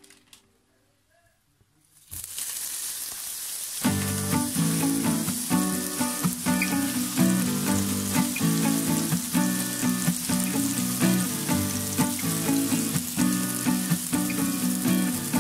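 Raw ground-meat burger patty sizzling in hot oil in a frying pan, the sizzle starting suddenly about two seconds in as the patty goes into the pan. Background music comes in about four seconds in and plays over the steady sizzle.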